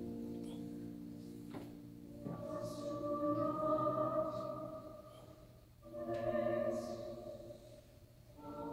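Mixed choir singing slow, sustained chords: one phrase dies away at the start, new phrases enter about two seconds in, around six seconds and just before the end, each swelling and then fading.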